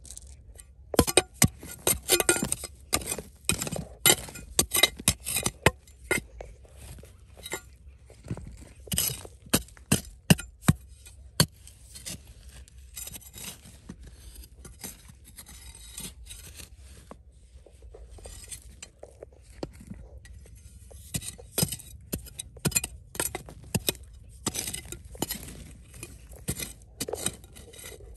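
Many sharp clinks and clicks of small hard objects knocking together. They come in two busy spells, with a quieter stretch in the middle.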